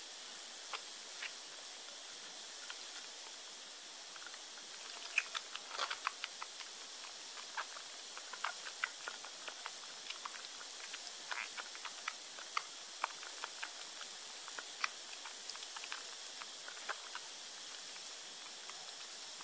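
Kitten suckling at a feeding bottle: faint, irregular wet clicks and smacks at a few a second, thickening about five seconds in, over a steady background hiss.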